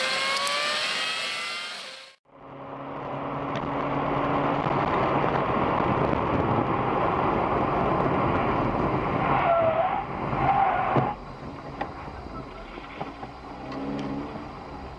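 Car driving noise from a dashcam: an engine revving up, rising in pitch, cuts off after about two seconds. Then comes steady engine and tyre noise with a brief squeal near ten seconds and a sharp knock about eleven seconds in, after which it goes quieter.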